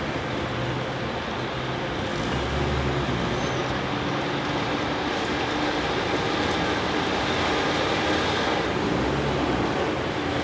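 City street traffic: a steady rumble of passing vehicles, with a low engine hum that swells and fades.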